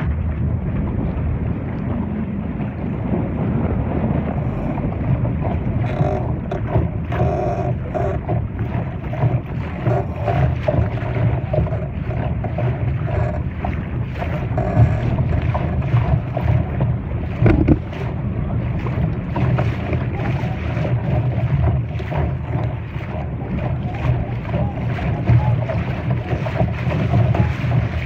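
Wind buffeting the microphone while a Laser dinghy sails along, with water rushing against the hull.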